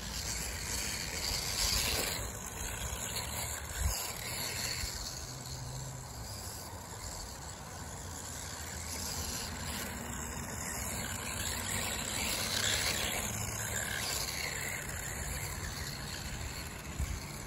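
Brushless-converted Feiyue FY01 RC buggy driving around on grass, its motor and drivetrain running as a steady noisy whirr that wavers a little with throttle.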